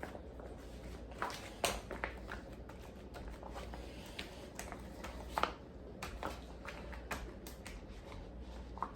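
Hands handling plastic freezer bags during food prep: scattered soft clicks and rustles, over a low steady hum.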